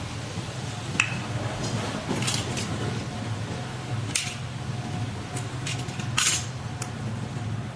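Hands working on an electric scooter's wiring with small tools: a sharp click about a second in, then a few short metallic scrapes and rattles.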